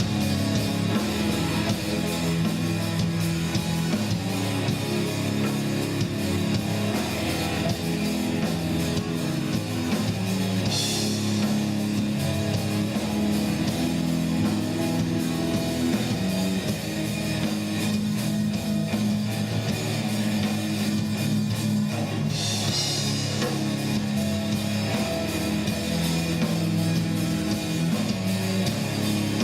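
Instrumental rock music with guitar and drum kit: sustained low guitar notes shifting every second or two, with a brief hissing swell twice.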